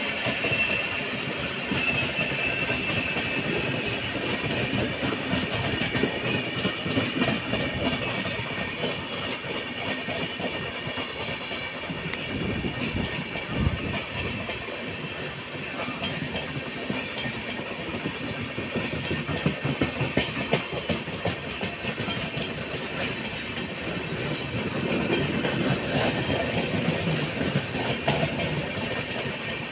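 Indian Railways passenger coaches rolling past close by, a continuous rumble with the wheels clicking over the rail joints.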